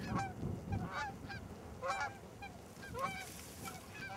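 Geese honking: a string of short, sharp honks at irregular intervals, several a second at times.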